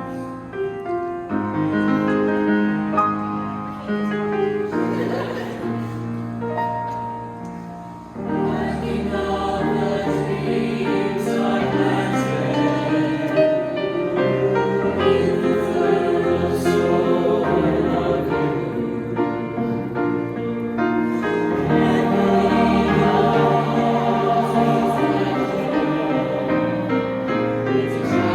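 A choir singing with piano accompaniment; the music grows fuller and louder about eight seconds in.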